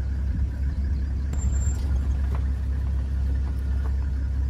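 Safari vehicle's engine running with a steady low rumble, heard from on board while driving.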